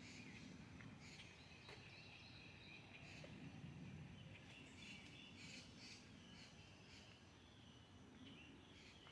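Faint bird calls, short notes repeated in a few clusters, over a low steady outdoor rumble.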